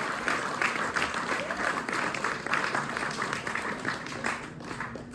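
Audience applauding with many individual claps, fading out near the end.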